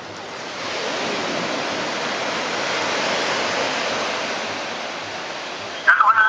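A wash of noise like surf, swelling for about three seconds and then fading away. Music with held tones comes in just before the end.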